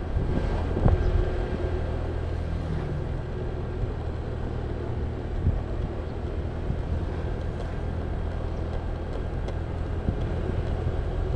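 Motor scooter engine running steadily at a constant cruising speed of about 40 km/h, with a steady rush of wind and road noise.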